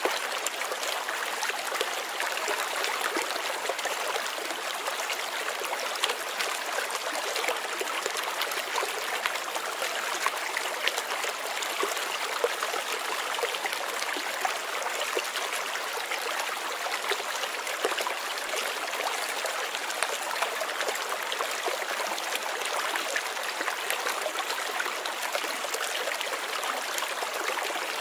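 Flowing water of a stream, trickling and splashing steadily.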